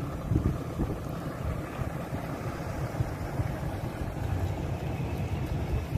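Ram 2500 pickup's Cummins turbo-diesel engine running as the truck slowly tows a fifth-wheel trailer past, heard as a steady, uneven low rumble.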